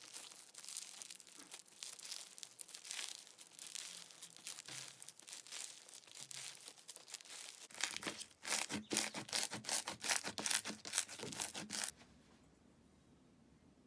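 Slime being squeezed and stretched by hand, making a dense crackling, crinkling sound. About eight seconds in, a louder run of sharp crackles and pops follows, stopping suddenly around twelve seconds.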